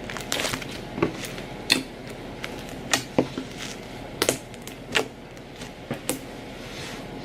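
Fluffy slime being squeezed and stretched by hand, giving off irregular sharp pops and clicks, about one a second.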